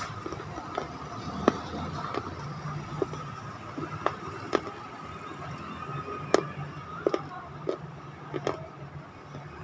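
Wet mouth sounds of chewing a white paste with the lips closed: about a dozen sharp, irregular clicks and smacks over a steady background hum.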